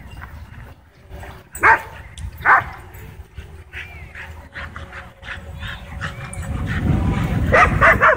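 Dogs barking and yipping, worked up by a drone flying low over them. Two loud barks come about two seconds in, then scattered yips, and a burst of barks near the end over a low rumble that builds in the last couple of seconds.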